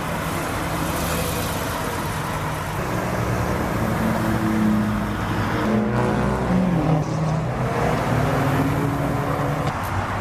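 A car engine running, its pitch rising and falling a few times through the middle.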